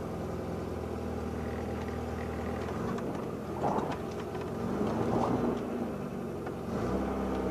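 Car driving along: steady engine hum and road noise, with the engine note shifting a couple of times. It is picked up by a camera mounted on the outside of the car behind a home-made clear plastic wind shield.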